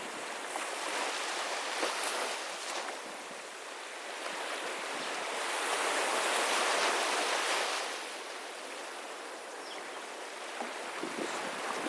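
Small sea waves washing onto a beach, one swelling wash about halfway through that falls back.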